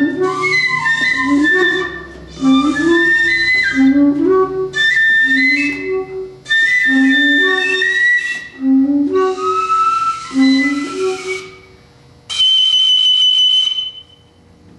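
Experimental flute and bass saxophone duet: the saxophone repeats a low two-note figure in short phrases while the flute plays lines above it. Near the end the saxophone drops out, a single high note is held for about a second and a half, and then the playing stops.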